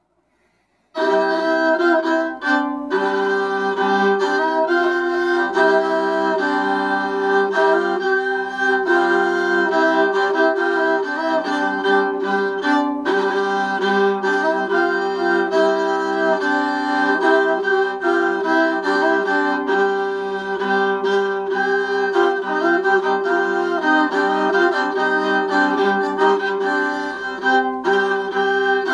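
A crwth, the Welsh bowed lyre, played with a bow: a tune over steady held drone notes, starting about a second in.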